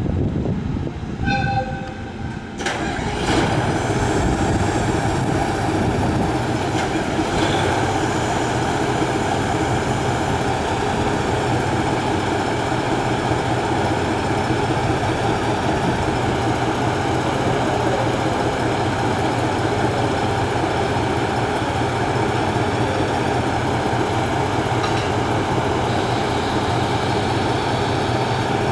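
A brief toot of the train's horn about a second in, then the diesel engine of a JR Hokkaido KiHa 183-5200 'North Rainbow Express' railcar starts suddenly about two and a half seconds in and settles into a steady idle with a low hum.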